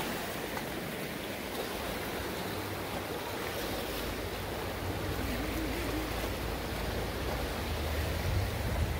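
River water rushing over shallow riffles and small rapids, a steady even wash, with a low rumble of wind on the microphone underneath.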